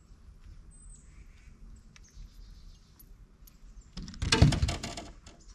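A small bass thrashing and splashing at the boat's side, a burst of rapid strokes about four seconds in lasting about a second, with faint bird chirps around it.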